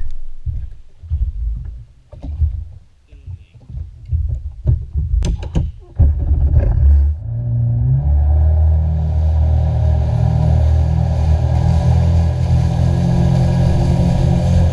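Uneven low rumbling and a few sharp knocks for the first six seconds, then a jet ski's engine comes up to speed and runs at a steady high-speed drone, with a hiss above it.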